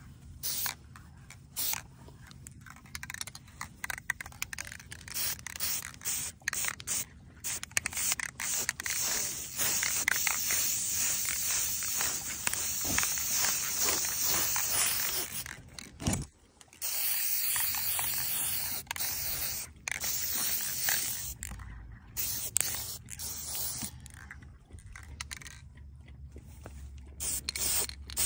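ColorPlace aerosol spray-paint can hissing as paint is sprayed, in short spurts at first, then a long continuous spray of several seconds in the middle, then short spurts again.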